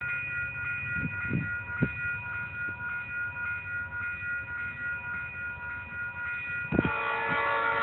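Railroad grade-crossing signal bell ringing steadily while the crossing gates come down, with a couple of short knocks. Near the end a train's horn starts sounding, louder, holding several steady tones at once.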